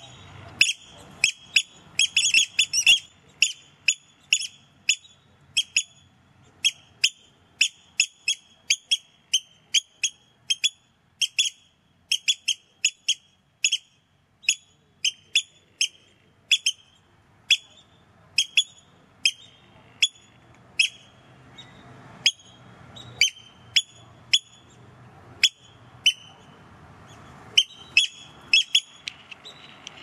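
Eurasian oystercatchers calling: a long series of short, sharp, high piping calls, about two a second, with a quick burst of them near the start.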